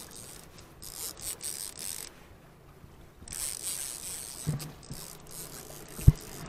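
Fishing reel being cranked to bring in a hooked king salmon, its gears whirring, with a short pause about two seconds in. A few low knocks come near the end, the loudest a sharp one about six seconds in.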